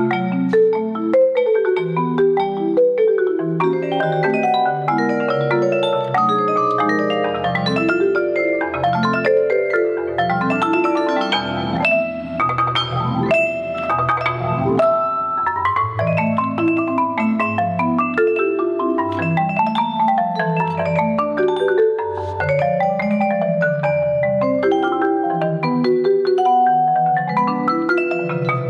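Marimba played with yarn mallets in a busy tango passage. Fast moving figures run over low bass notes, with some notes held longer near the end.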